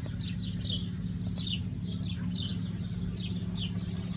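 Birds chirping in the trees: quick, repeated short chirps that drop in pitch, several a second, over a steady low hum.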